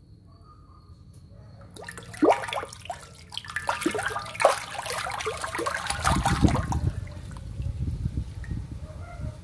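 Clarias catfish thrashing and splashing at the surface of shallow water, with wet slaps and quick gurgling plops. The splashing starts about two seconds in and is busiest through the middle. A low rumble joins it from about six seconds in.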